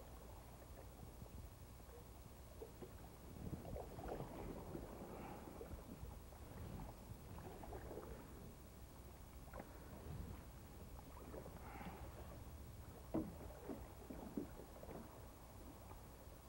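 Faint paddle strokes from a solo canoe: the blade swishing and lightly splashing through calm water, with two sharper clicks late on.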